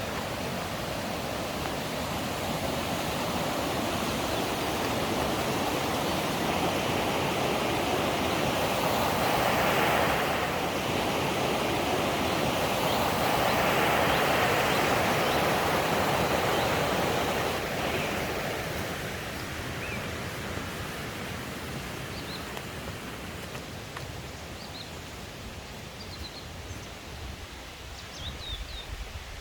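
Mountain stream rushing over rocks in a steady hiss. It swells louder through the middle and fades away over the last ten seconds. A few faint, short, high bird chirps come near the end.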